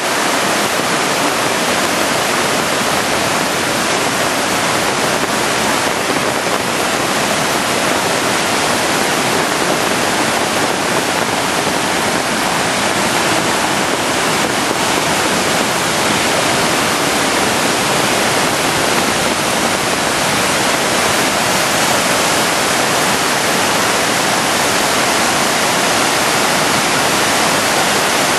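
A swollen, muddy river rushing in flood after typhoon rains, a steady, loud roar of turbulent water.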